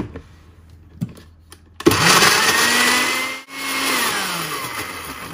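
Jug blender pureeing mango on its own: a few light knocks, then the motor starts loud about two seconds in, briefly cuts out midway and restarts, then winds down with its pitch falling.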